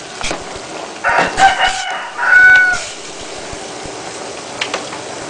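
A rooster crowing about a second in: a call in several notes, the last one held, over a steady low hiss.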